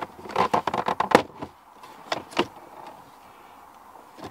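Hard plastic clicking and knocking as a Vauxhall Astra H glove box is worked loose and pulled out of the dashboard: a quick run of clicks and rattles in the first second and a half, then a couple more knocks about two seconds in.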